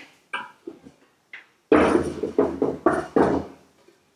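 Makita SJ401 scroll saw being turned around on a table saw top. A few light knocks come first, then about two seconds in, its base scrapes and thumps against the table in a run of loud pulses.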